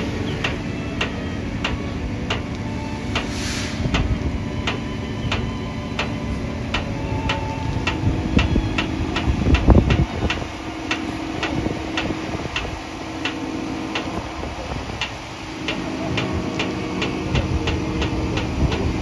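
Heavy-haul truck's diesel engine running low as a many-axle modular trailer carrying a transformer rolls slowly past, with a louder rumble about halfway through. A steady ticking about three times a second sounds throughout.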